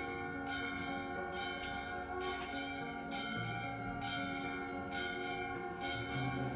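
Bells struck repeatedly, roughly once a second, over a sustained ringing, with low notes underneath that shift pitch a couple of times.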